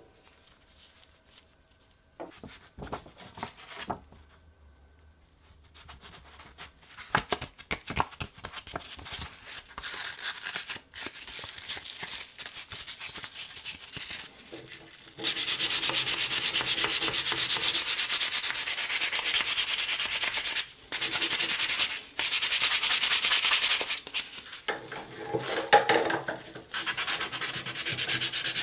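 Abrasive paper rubbed by hand over a steel part of an antique Bulldog revolver held in a bench vise, in fast back-and-forth strokes, to take off rust. A few light clicks and knocks of metal parts being handled come first. From about halfway the steady sanding takes over, pausing briefly twice.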